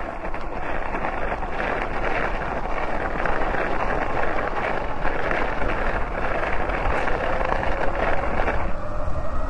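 Wind rushing over the microphone while riding an electric bike at speed, with a faint steady motor whine underneath. Near the end the wind noise drops and the whine stands out more clearly.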